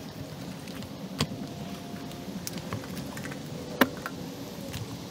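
Nylon gear being handled and packed, with a few small ticks and two sharp clicks, one about a second in and one near four seconds in, over a steady low background noise.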